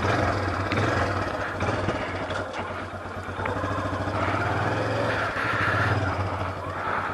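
Motorcycle engine running steadily at low revs, a continuous low hum.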